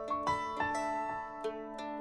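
Background music: a light melody of separate ringing notes, a few a second.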